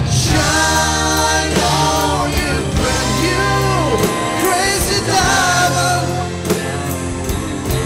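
Live rock band playing: voices singing long, wavering notes over electric guitars, bass guitar, keyboards and drums.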